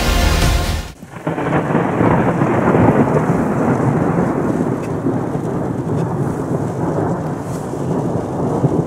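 Background music cuts off about a second in, giving way to a heavy thunderstorm downpour heard from inside a car: rain pelting the windshield and roof over a low rumble of thunder.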